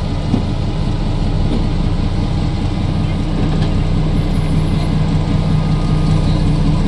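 Diesel locomotive engine running steadily with a deep rumble and a steady low hum, getting a little louder near the end.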